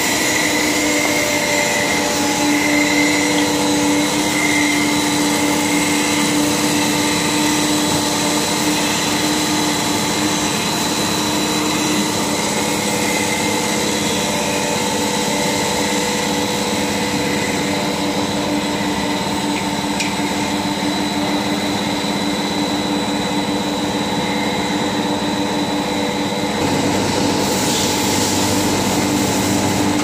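Flat prestressing duct production line (plastic extruder and corrugator with its travelling mould blocks) running: a steady machine noise with several constant whining tones. Near the end the noise turns rougher and fuller.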